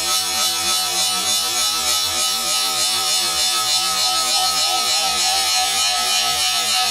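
Wood lathe spinning an Afghan pine blank while a tool works its face: a steady hiss of wood being cut, over a constant whine from the lathe.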